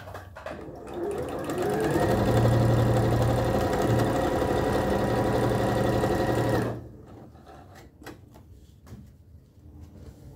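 Electric sewing machine stitching a long seam: it speeds up over about a second, runs steadily for about five seconds, then stops suddenly. A few light clicks follow.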